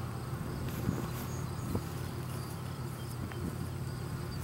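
Insects chirping steadily in a summer field, a thin high drone over a steady low hum, with a few faint ticks.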